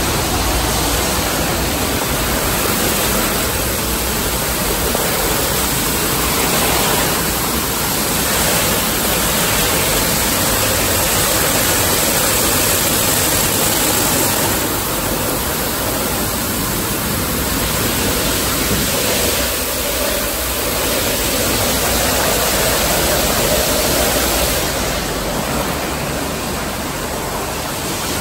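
Automatic rollover car wash at work on a car: a steady, loud rush of water spray and spinning wash brushes.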